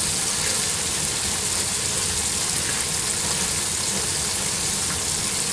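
Battered squirrel pieces frying in a skillet of hot oil: a steady sizzle.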